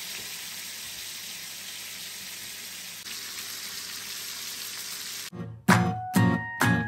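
Pork chops frying in hot oil in a pan, a steady sizzle that cuts off suddenly about five seconds in. Strummed guitar music starts just after.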